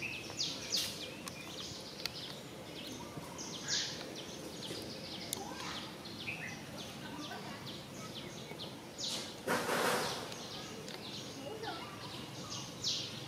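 Outdoor ambience with many short, high bird chirps scattered throughout, and a brief noisy rustle about three-quarters of the way in.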